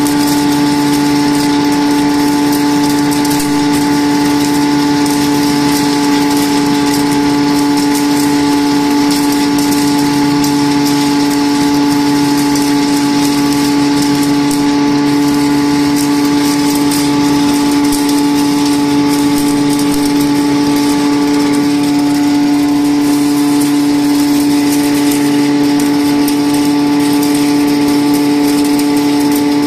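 Soybean grinding mill running steadily while soybeans feed down from its hopper into the grinder: a loud, even motor hum over a constant grinding hiss.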